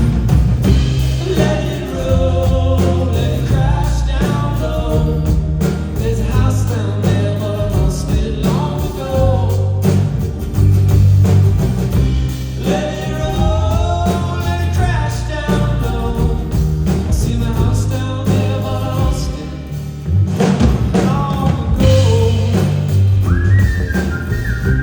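Live indie rock performance: a singer's voice over a full band with a strong bass line. A high, steady held note comes in near the end.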